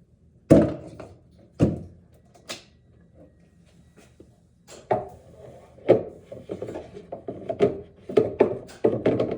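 Reverse-osmosis filter cartridges and housings being handled and knocked against wood: three sharp knocks in the first few seconds, then from about halfway a quick run of knocks and rubbing.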